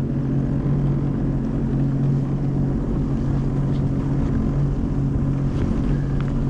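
Personal watercraft engine running steadily, an even low hum with no change in pitch, with some wind noise on the microphone.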